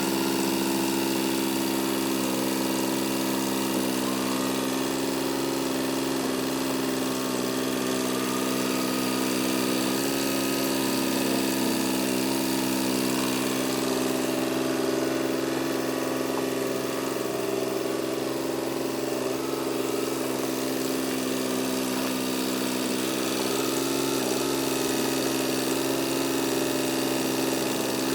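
An engine running steadily at a constant speed, its pitch barely changing throughout.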